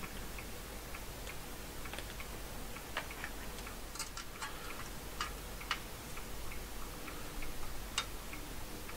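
Irregular light clicks and taps of a thin sheet-metal card-reader housing being handled and fitted together by hand, roughly one or two a second.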